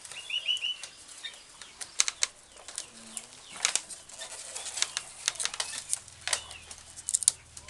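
Split rattan strands clicking and rustling in irregular sharp snaps as they are pulled tight and tucked into a binding wound around a steel pipe.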